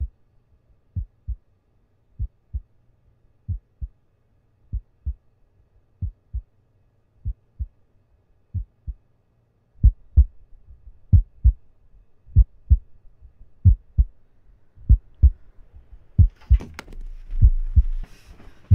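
Heartbeat sound effect: paired low thumps, a lub-dub about every 1.25 seconds, slow and even. About ten seconds in the beats get louder over a rising background, and near the end a hiss of noise and a low rumble join them.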